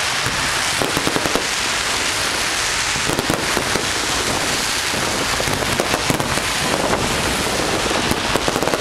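Fireworks going off in a dense, continuous run of crackling and popping, with clusters of sharper cracks about a second in, around three seconds in, and near the end.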